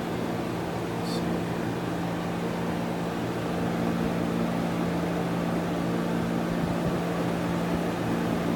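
LG wall-unit air conditioner running: a steady compressor hum under the fan's airflow noise, with no rattle, the coils now braced with tie wraps.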